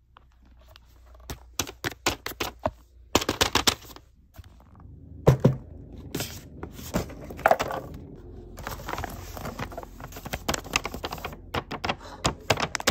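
A homemade paper blind bag being handled, its paper crinkling and rustling in quick, irregular crackles with a few short pauses.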